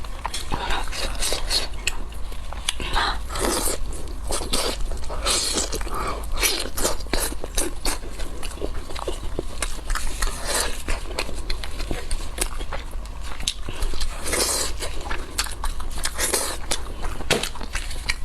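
A person chewing and biting spiced sheep's head close to the microphone: irregular crunches and clicks of eating in quick succession.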